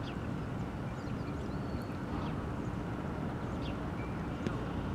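Outdoor ambience: a steady low rumble like distant traffic, with a few short chirps from small birds.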